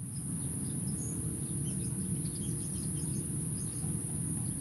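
Lakeside ambience: insects droning steadily at a high pitch, with scattered short bird chirps over a low background rumble.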